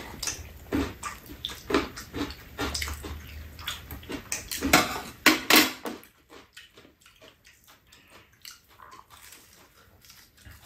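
Eating sounds at a table: a run of short clicks and rustles from hands and chopsticks handling fried chicken pieces in a paper box, loudest in the first six seconds, then only faint ticks and chewing.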